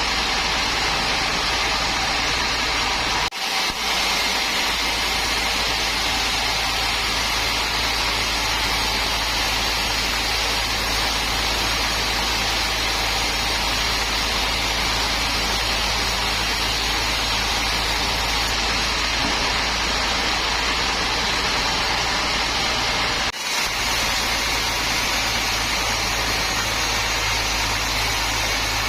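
Sawmill machinery running steadily: a continuous engine-like drone with a deep hum underneath. The sound dips briefly twice, about three seconds in and again after about 23 seconds.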